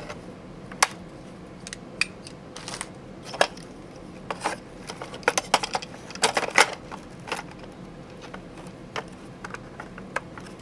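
Scattered small plastic clicks as a motor wire plug is handled and pushed into its socket on an RC tank's control board, with a cluster of sharper clicks around six seconds in.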